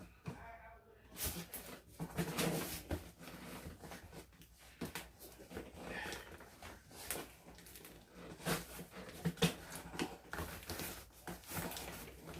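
Cardboard box and packing material rubbing, scraping and knocking irregularly as a TV is worked out of a tightly packed box.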